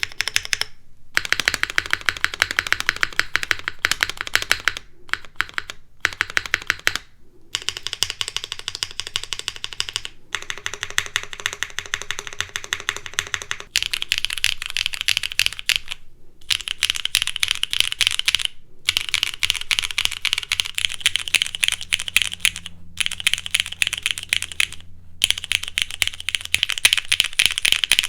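Fast typing on a Mode Sixtyfive mechanical keyboard fitted with lubed linear switches: a dense run of key presses and bottom-outs in short takes, each broken off by a brief silence. Later takes sound brighter and clackier than the early ones.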